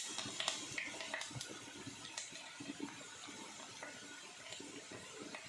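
Curry leaves faintly sizzling and crackling in hot oil in a kadai, with small scattered pops that are livelier in the first second or so.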